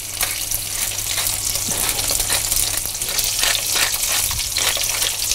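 Duck foie gras escalopes frying in their own melted fat in a very hot pan: a steady sizzle with frequent small crackles.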